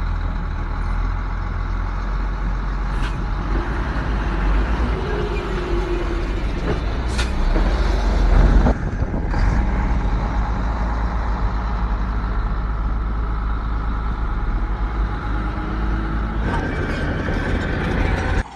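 Heavy diesel earthmoving machinery running steadily at work, with a deep engine rumble and a few brief sharp noises about three, seven and nine seconds in.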